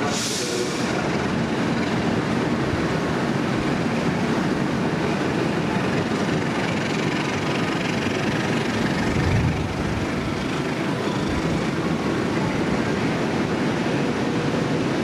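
Passenger train coaches rolling past a station platform: a steady rumble of wheels on the rails. A brief hiss at the very start, and a short low bump about nine seconds in.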